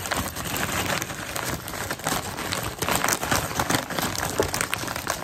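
Clear plastic bag of pork rinds crinkling and rustling in dense crackles as it is opened and handled, a hand reaching in among the rinds.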